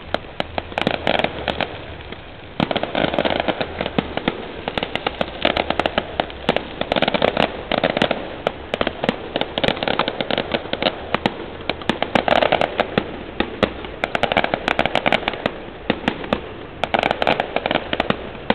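A string of firecrackers going off in rapid, dense volleys of sharp pops, with a short lull about two seconds in.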